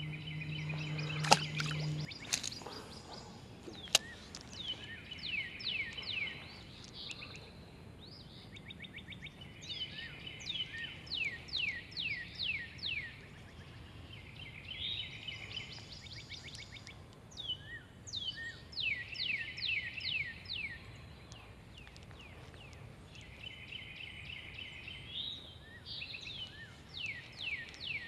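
Songbirds singing over and over, each phrase a quick run of falling whistled notes, some with buzzy trills, coming back every few seconds. Two sharp clicks in the first four seconds, the first the loudest sound, and a low steady hum that stops about two seconds in.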